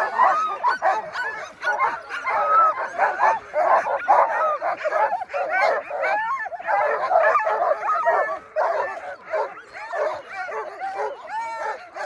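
A team of harnessed sled dogs yelping, yipping and barking together in a loud, unbroken chorus of overlapping high calls. It is the excited noise of racing dogs eager to run at a start line.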